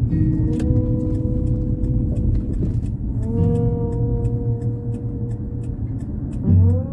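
Radio music: a song intro with long held notes that slide upward near the end, over a steady ticking beat. A low vehicle rumble runs underneath.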